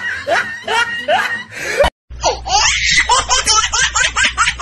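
Loud laughter in repeated 'ha-ha' pulses, about three a second, cut off abruptly about two seconds in; a different, faster laugh starts right after.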